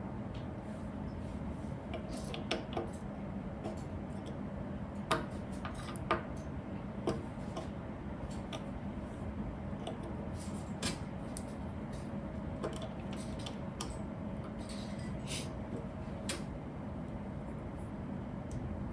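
Small plastic Lego pieces clicking and rattling as they are handled and pressed together: scattered sharp clicks, a few louder ones about five to seven seconds in, over a steady background hum.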